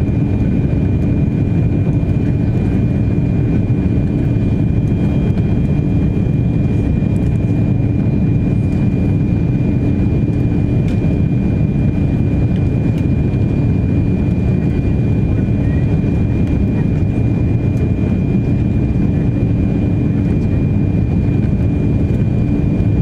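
Airbus A340-600 cabin noise on final approach, heard from a window seat behind the wing with the flaps extended: a steady, loud roar of airflow and engines. Through it run a low hum and a thin high whine that stay level.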